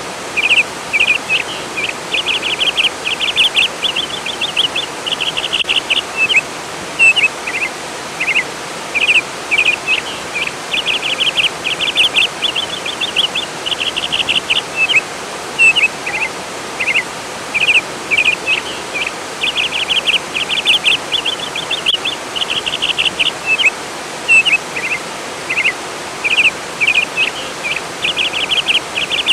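Songbird singing short phrases of rapid trilled chirps, repeated every couple of seconds, over the steady rush of flowing water.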